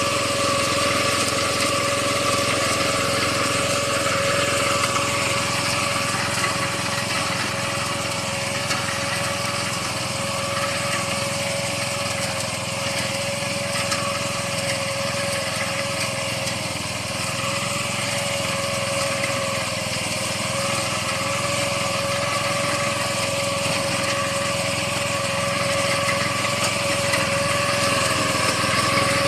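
Small engine of an improvised soybean-cutting machine running steadily at high speed, with an even, unchanging whine.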